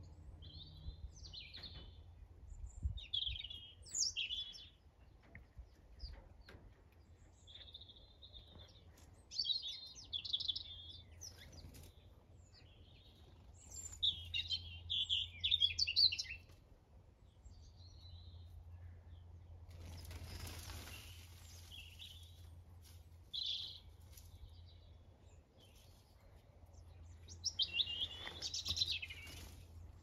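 Small songbirds chirping and twittering in short bursts, some phrases fast and chattering. A brief rushing hiss about two-thirds of the way through, and a faint low hum underneath.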